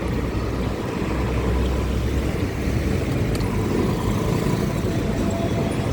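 Street traffic noise: motor vehicles running and passing, with a steady low rumble throughout.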